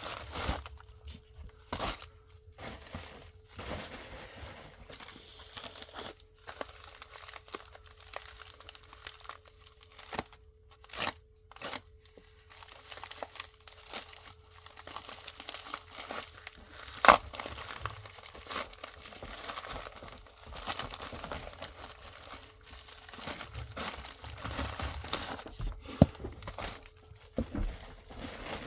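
Packaging being handled, torn open and crinkled as a package is unwrapped, with irregular rustling and tearing and two sharp snaps, one a little past the middle and one near the end.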